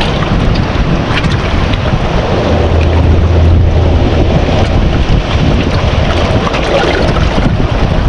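Sea water sloshing and lapping among shoreline rocks, a dense steady wash with small splashes, over a heavy low rumble of wind on the microphone that swells briefly around the middle.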